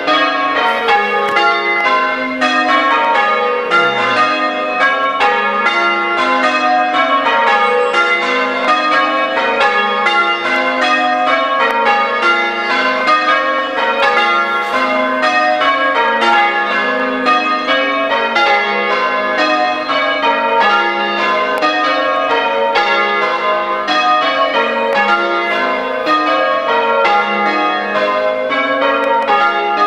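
A ring of six church bells being change-rung, the bells striking one after another in a steady, unbroken sequence.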